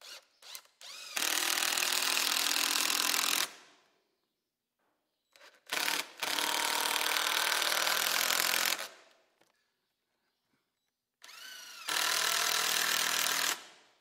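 Cordless drill running into wooden boards in three long runs, each starting with short trigger blips and a rising whine as the motor spins up.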